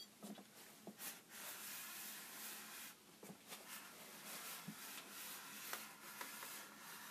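Zircon stud finder sliding across a wallpapered wall: a faint, steady rubbing of plastic on paper, with a few light clicks.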